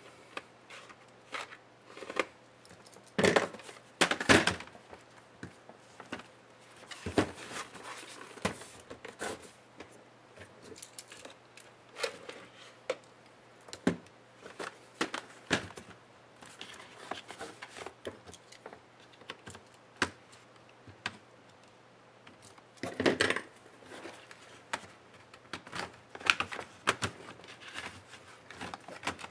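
Hands and a pry tool working a plastic laptop case apart: irregular clicks, taps and knocks, with a few louder scraping bursts as the tool is run along the case seams. Tools are picked up and the laptop is turned over on the bench.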